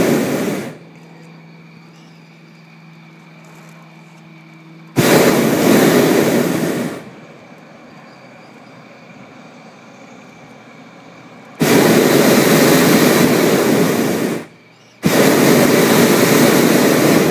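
Hot-air balloon's propane burner firing in repeated blasts of about two to three seconds, each a loud steady rushing roar that starts and stops abruptly: one ends just under a second in, the others come about five, eleven and a half and fifteen seconds in. Between blasts there is a much quieter low hum.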